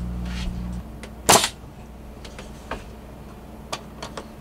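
Pneumatic finish nailer firing once, a sharp crack about a second in, driving a 1.5-inch finish nail into the wooden trim. A few faint ticks follow, and a steady low hum stops just before the shot.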